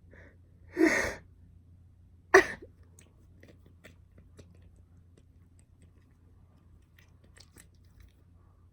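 A girl sneezing twice: a fuller sneeze about a second in, then a short, sharp one about a second and a half later.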